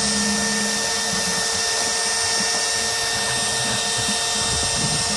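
Cordless drill running steadily to drive a drill-powered transfer pump that draws water from a tilted 5-gallon bucket. The drill whines steadily, and its low hum turns uneven about a second in.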